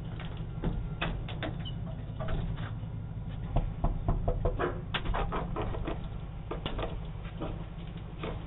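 Irregular clicks, scuffs and knocks, denser toward the middle, over a steady low hum from a doorbell camera's microphone.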